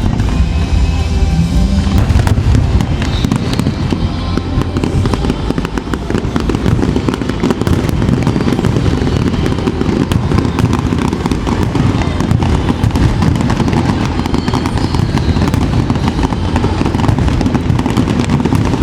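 Fireworks display: dense, continuous crackling and popping from bursting shells, with show music playing, clearest in the first couple of seconds.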